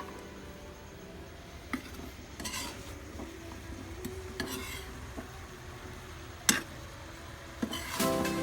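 Cooking utensil clinking and scraping against a pot or pan, with a few sharp clinks spread through, the loudest about six and a half seconds in, over a faint steady background that may be food simmering in the pan.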